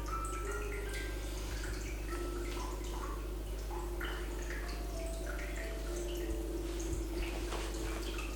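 Soft, relaxing background music: gentle held notes that step between pitches, with short high plinks scattered through it, over a steady low hum.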